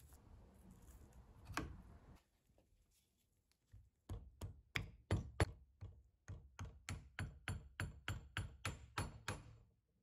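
Hammer tapping through a rag on the steel spindle shaft of a hand-cranked drill, driving it into place above the bevel gear. After some soft handling and one knock, the taps begin about four seconds in: about sixteen short, even taps at roughly three a second, with a brief pause after the first half-dozen.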